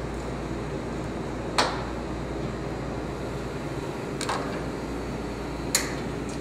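Three sharp metal clacks of a portafilter being handled and fitted to an espresso machine's group head, the first about a second and a half in and the loudest, over a steady background hum.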